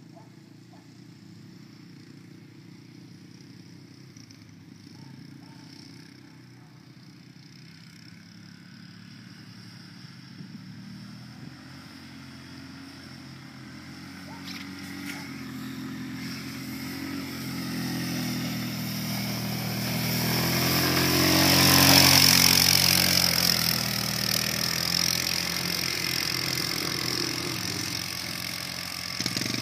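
ATV (quad bike) engine running, faint and distant at first, then growing steadily louder as the quad comes close well past the middle, and easing off again afterwards.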